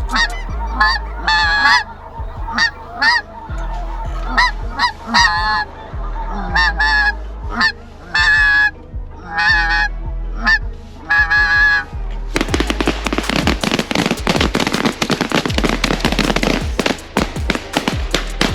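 Snow geese honking, many short overlapping calls. About twelve seconds in, a dense, noisy wash of sound takes over.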